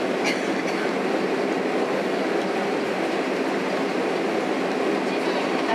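Steady cabin noise of a Boeing 767-300 taxiing, heard from a seat over the wing: a constant low rumble of the jet engines at taxi power.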